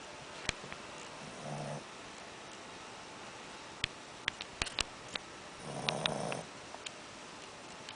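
Shih tzu puppy snoring in its sleep: a short snore about a second and a half in and a longer one about six seconds in. Between them comes a cluster of sharp clicks.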